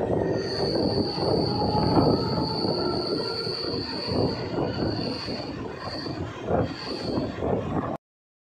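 Mumbai suburban local train running, its steel wheels squealing against the rails in one long high squeal, then two shorter squeals over the rumble and rattle of the coach. The sound cuts off suddenly near the end.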